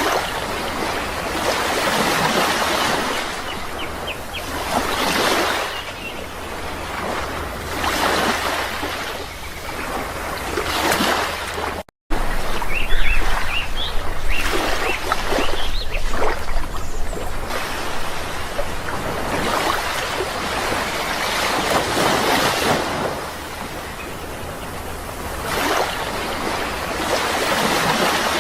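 Sea waves washing in and drawing back, swelling every few seconds, with small birds chirping faintly over them. The sound drops out for an instant about twelve seconds in.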